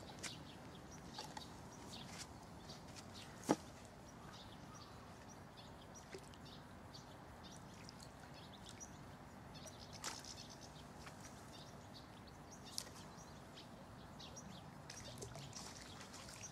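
Faint outdoor ambience with scattered small ticks and clicks, and one sharp click about three and a half seconds in.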